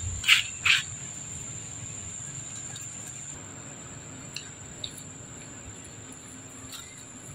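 Two short, loud squeals from young macaques play-fighting, about half a second apart near the start, then two faint squeaks between four and five seconds in. A steady high-pitched insect drone carries on underneath.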